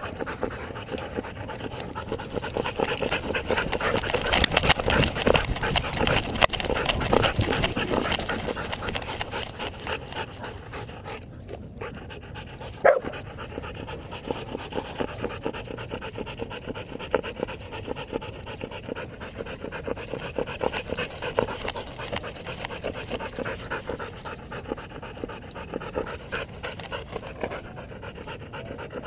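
A dog panting rapidly and continuously close up, heaviest in the first several seconds, with one sharp knock about 13 seconds in.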